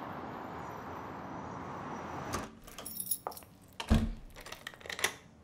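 Steady hum of city traffic, then, after about two seconds, keys jangling and clicking in a front-door lock, with a door thud just before four seconds in.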